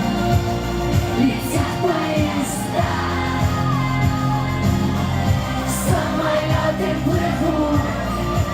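Pop song performed live, with a steady electronic beat, held bass notes and a singing voice over them.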